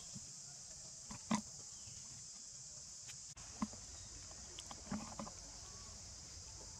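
Steady high-pitched insect drone, with a few short, faint sounds about a second in, midway, and around five seconds in.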